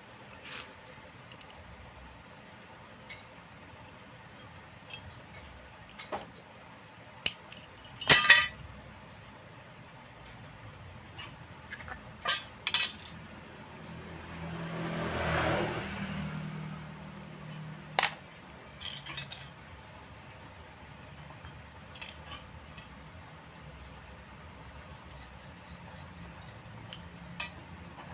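Steel cylinder studs and nuts clinking against each other and the motorcycle crankcase as they are handled, in sharp metallic clinks scattered every few seconds, the loudest a quick double clink about eight seconds in. Around the middle a low hum with a rushing sound swells and fades over about two seconds.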